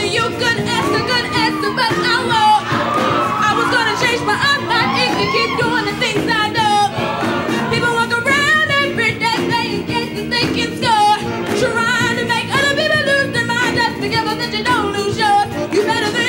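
Show choir singing a song over a live band, voices carrying a bending melody above steady held chords.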